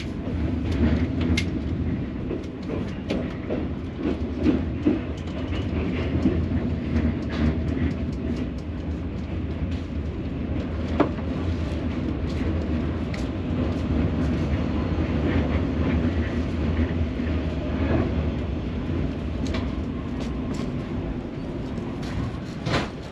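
Reunification Express sleeper train running on the rails: a steady low rumble with scattered clicks and knocks from the wheels and carriage.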